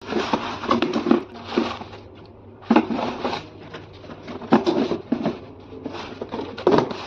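Shoe-box packaging being handled during an unboxing: bursts of rustling and scraping with sharp clicks and knocks, coming in four or five clusters with short quieter gaps between.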